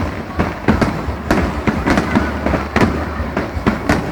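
Fireworks display: a rapid run of sharp bangs, about three a second, over a steady low rumble.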